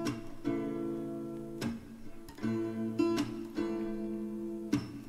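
Song accompaniment without singing: guitar chords strummed about once a second, each left to ring.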